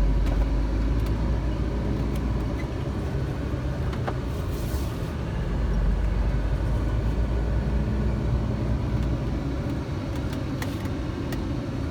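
Truck engine and road rumble heard from inside the cab while driving slowly. It is a steady low rumble that swells slightly near the start and again about six seconds in.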